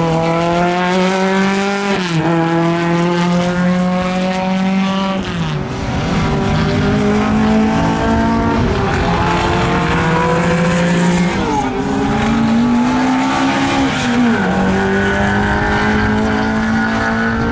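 Racing car engine revving hard, its pitch climbing steadily and then dropping back sharply about five times; the sound cuts off suddenly at the end.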